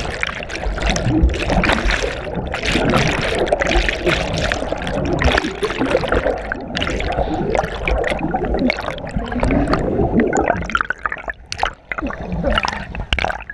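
Muddy river water churning and gurgling around a submerged action camera as its wearer wades and swims through, turning choppier near the end as the camera nears the surface.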